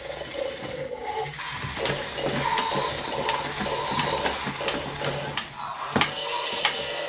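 Battery-powered toy dinosaur's motor and gears whirring steadily, with a sharp click about every 0.7 seconds as the mechanism cycles.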